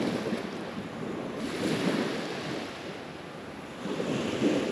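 Gulf surf breaking and washing up a sandy beach, the rush of water swelling three times: at the start, around two seconds in and near the end.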